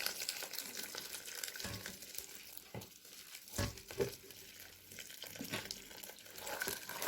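Hot water poured from a kettle into a pot of soaked fava beans, a faint hissing splash, with a few light knocks of utensils or pot about halfway through.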